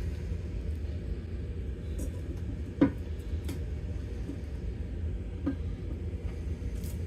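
A few light taps and clicks from handling, over a steady low hum; the sharpest tap comes about three seconds in.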